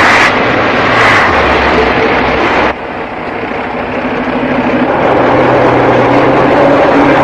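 Heavy truck engine running loudly, with two short hissing bursts near the start. The sound cuts off abruptly a little under three seconds in, and a steady engine drone then builds back up.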